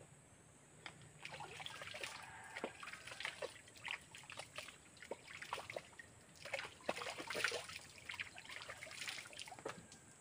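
Water splashing and trickling as hands scoop and stir in a small rock well pool, in irregular splashes that begin about a second in and are busiest a little past the middle.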